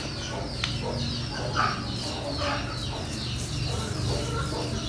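Chickens clucking, with short chirping bird calls scattered through, over a steady low hum.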